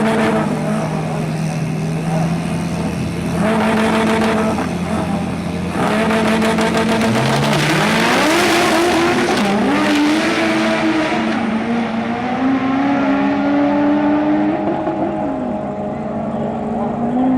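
A car engine revving hard, its pitch holding steady, then climbing and falling again several times, with surges of rushing noise about four and eight seconds in.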